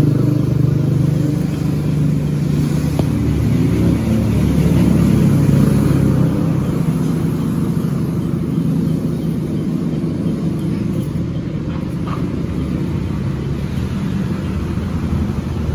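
Steady low engine rumble, strongest in the first few seconds and easing off slightly after.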